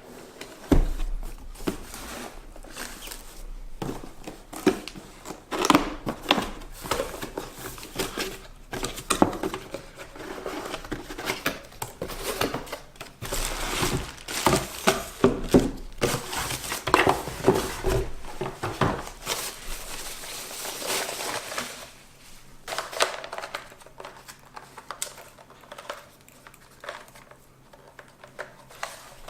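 Packaging of two electric kettles being handled and unwrapped: irregular crinkling and rustling of paper and plastic wrap with small knocks. It is busiest for the first two-thirds and thins out near the end.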